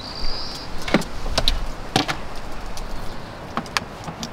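Sharp plastic clicks and knocks of a power plug being handled and pushed into the AC outlet of a DJI portable power station. The loudest clicks come about one and two seconds in, with two lighter ones near the end.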